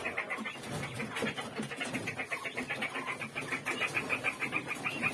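Young quail chirping in their cages: a rapid, even run of short high chirps, several a second.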